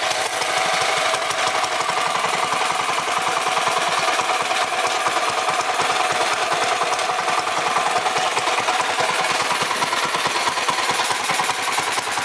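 Predator 212 single-cylinder four-stroke engine on a mini bike running steadily through a PWK Mikuni carburetor, with a chugging, shushing note: the air mixture is too lean and the engine is not getting enough gas.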